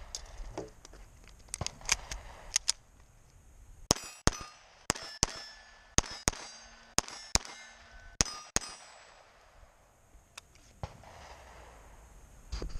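Ruger Mark IV 22/45 Lite .22 LR pistol firing Remington Thunderbolt rounds: a few shots, then a fast string of about a dozen cracks over some five seconds. Steel plate targets ring after hits.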